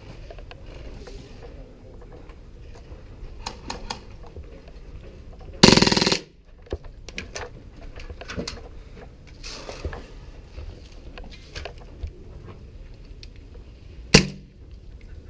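Airsoft gunfire: a loud half-second burst about six seconds in and a single sharp shot near the end, with faint clicks between.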